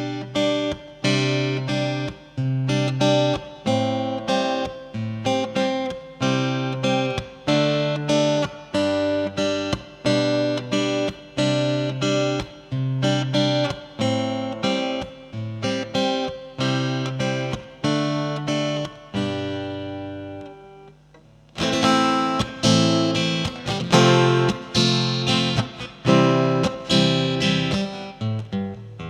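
Sigma GME+ guitar being played, a repeating pattern of plucked chords with sustained bass notes. The playing thins out and pauses briefly about twenty seconds in, then comes back brighter and louder.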